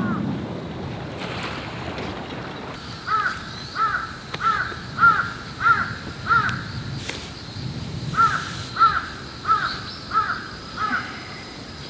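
A crow cawing in two quick runs, about six caws, a short pause, then five more, over the wash of surf that fades in the first few seconds.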